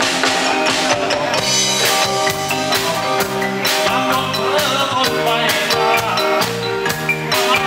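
A live band playing an upbeat song with a steady drum beat.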